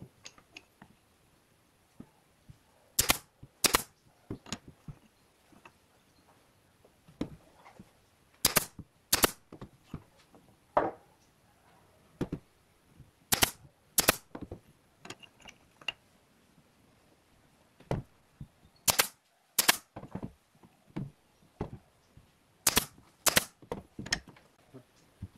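Pneumatic nail gun firing brads into small wooden strips. The shots come in pairs about half a second apart, five pairs in all, with lighter taps and knocks of the wood being handled between them.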